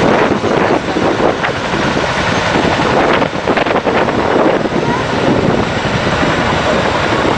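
Helicopter engines and rotors running with a steady, loud rumble, mixed with wind buffeting the microphone.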